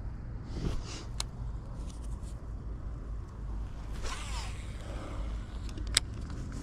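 A zip-like rasp heard twice, and two sharp clicks, over a steady low rumble.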